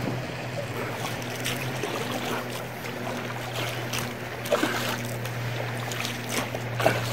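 River water swishing and lapping around a small inflatable boat moving quickly downstream, over a steady low hum, with a few light knocks.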